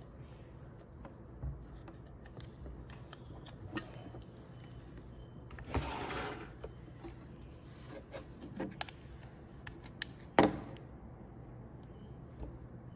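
Handling noises of a Sony FS7 camera and a timecode cable: scattered small clicks as the plug is worked onto the camera's timecode connector, a rubbing scrape about six seconds in, and a sharp knock just after ten seconds, the loudest sound, over a faint steady hum.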